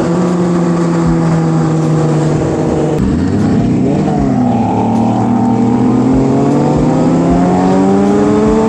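Sport bike engine running steadily, then dropping in revs about three seconds in and climbing in pitch as the bike accelerates.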